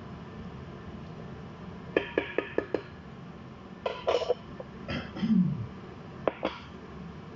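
Kitchen handling noises over the steady hiss of a cooker-hood extractor fan: a quick run of five sharp taps, a few knocks, and near the end two clicks as a glass of rice is set down on the stone countertop.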